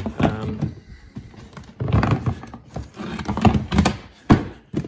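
Household and shop items being handled and shifted in a storage cabinet: irregular clattering and rustling, with two sharp knocks near the end.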